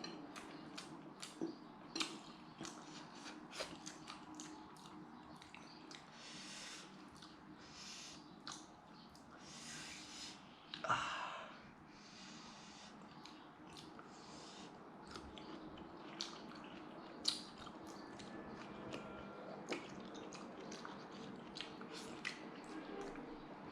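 A person chewing and biting roast chicken, with many short wet clicks and smacks of the mouth and a few breathy puffs of breath, one louder about eleven seconds in.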